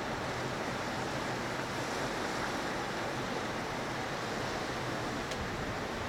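Steady rush of strong wind over a choppy, whitecapped sea, with waves washing.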